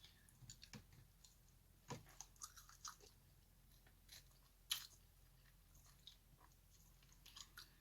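Faint close-up chewing: soft, scattered mouth clicks and small crunches, with a slightly louder crunch about two seconds in and another just before five seconds.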